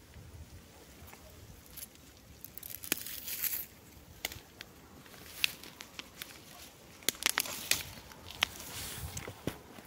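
Dry grass, twigs and fallen leaves rustling and crackling as someone moves through them, with sharp snaps scattered throughout and a denser rustle about three seconds in.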